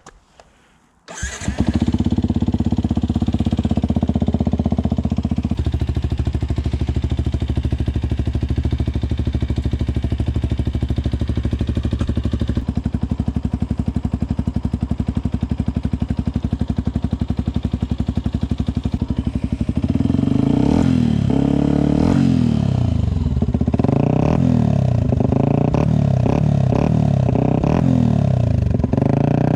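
Yamaha WR 125X's single-cylinder four-stroke engine with a BlackWidow aftermarket exhaust starting about a second in and idling steadily. From about two-thirds of the way through it is revved in a series of blips, its pitch rising and falling each time.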